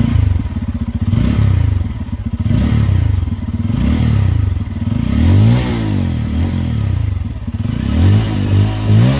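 Bajaj Pulsar N250's single-cylinder 250 cc engine revved through its dual-barrel exhaust, the throttle blipped again and again so the note rises and falls repeatedly.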